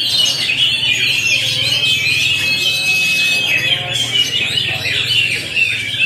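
Several caged oriental magpie-robins (kacer) singing at once, a dense run of overlapping whistled phrases and calls, over a low steady hum.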